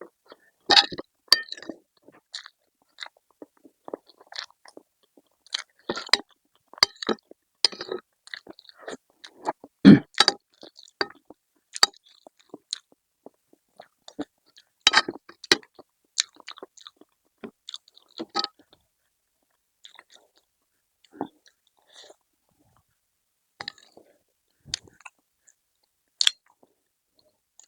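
Close-up eating sounds: chewing, biting and crunching in irregular bursts, with short quiet gaps between them.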